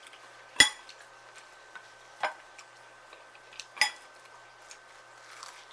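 Cutlery clinking against a dish while eating: two sharp clinks about three seconds apart, with a softer tap between them.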